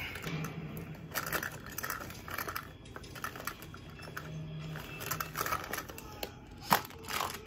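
Light clicks and taps of small makeup items being handled and set down, with a couple of sharper clicks near the end.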